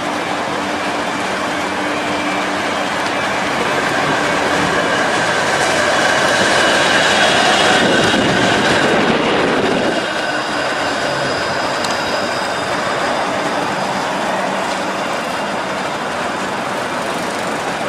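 Flexity Outlook streetcar passing close by, its electric drive giving a steady whine of several tones over the rumble of its wheels on the rails. The sound grows to a peak and then drops off suddenly about ten seconds in, leaving quieter street noise.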